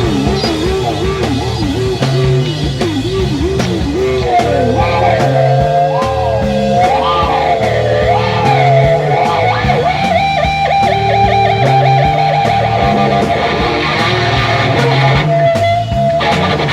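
Live acid-rock music: an electric guitar solo with wide vibrato and pitch bends, then a held note with a run of fast repeated notes from about ten seconds in, over bass and drums.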